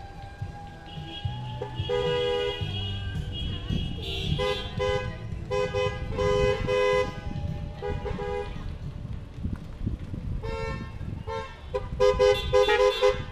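Car horns honking as a line of cars drives slowly past: short toots and longer blasts, one after another, with a rapid string of toots near the end. Engine and tyre rumble runs underneath.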